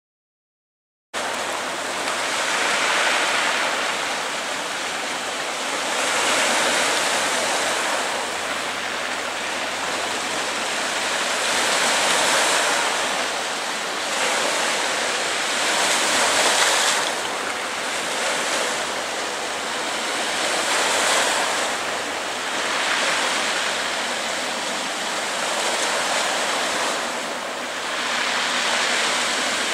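Sea waves washing onto a rocky shore: a steady rushing that swells and ebbs every few seconds. The sound cuts in about a second in.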